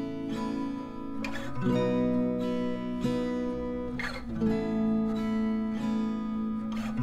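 Background music: acoustic guitar strumming sustained chords, the chord changing about every three seconds.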